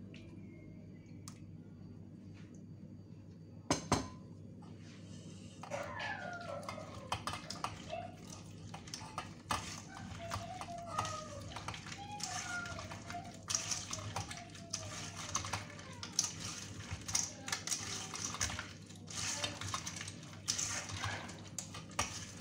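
Soaked tamarind pulp being squeezed and kneaded by gloved hands in a stainless-steel strainer: irregular wet squishing and scraping, with the odd clink of the metal strainer, growing busier in the second half. A single sharp knock comes about four seconds in.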